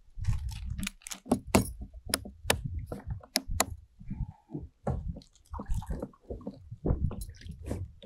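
Irregular clicks, crinkles and knocks of hands rummaging through fishing tackle for a fresh pack of soft-plastic tube baits.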